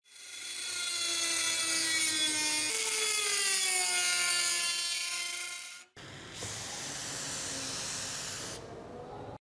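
Small handheld rotary tool with a thin cut-off disc spinning at high speed and grinding along a rusted steel kukri blade: a high whine whose pitch sags a little as the disc bites. About six seconds in it cuts to a rougher, noisier scraping sound that stops abruptly near the end.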